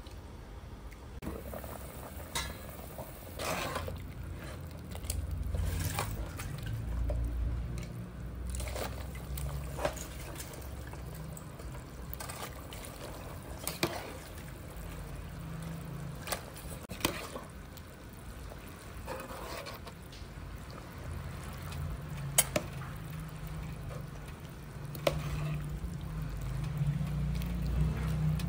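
Pot of soup simmering and sloshing as a ladle stirs it, with scattered sharp clinks of the ladle against the metal pot over a steady low rumble.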